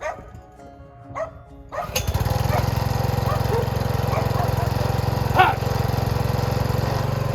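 Quiet background music, then about two seconds in a small engine cuts in loud and runs steadily at one speed. A dog barks several times over it, loudest once about five and a half seconds in.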